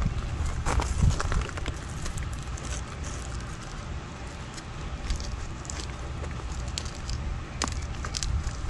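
Hands handling and strapping a battery pack onto an e-bike frame: scattered small crackles and clicks, a few louder ones about a second in and near the end, over a low rumble of wind on the microphone.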